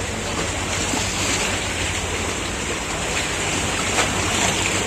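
Boat engine humming steadily under a wash of wind and water noise.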